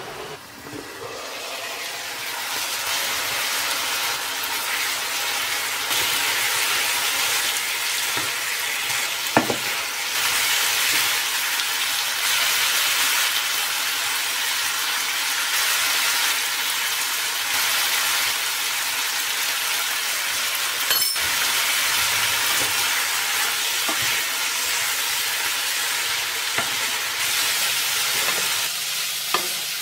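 Cubes of beef liver frying in oil in a pan with onions and peppers, sizzling steadily and stirred with a wooden spatula. The sizzle swells over the first two seconds as the lid comes off, and a few sharp knocks break through now and then.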